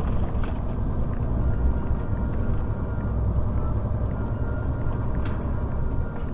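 Steady low road and engine rumble of a car driving, as heard inside the cabin, with two light clicks, one about half a second in and one near the end.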